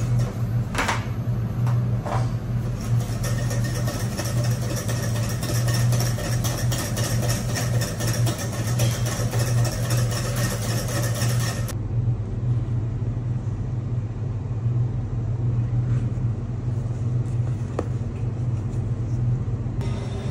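Steady low hum of commercial kitchen machinery, with a hiss above it that drops away a little past halfway.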